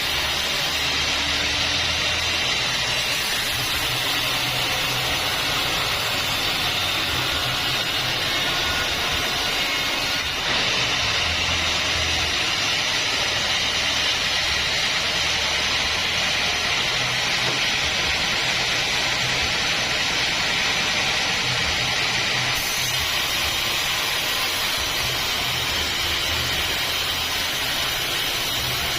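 Band sawmill running steadily, its blade sawing through acacia timber with a continuous hiss over a low motor hum.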